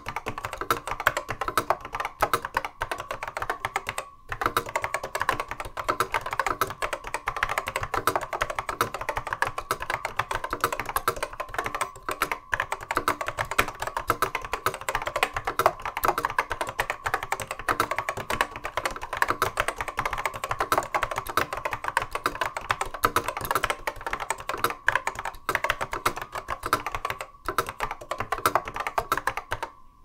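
Continuous fast typing on an Apple M0110 keyboard with Alps SKCC Tall Cream switches: rapid clacking keystrokes over a steady, loud ping that rings under the typing. There are a few brief pauses.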